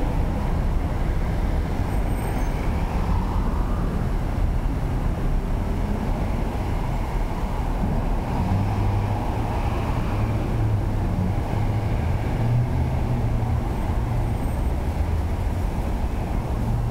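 Steady city traffic: cars and SUVs driving past in the near lanes, with a continuous low rumble of engines and tyres that swells as each vehicle goes by.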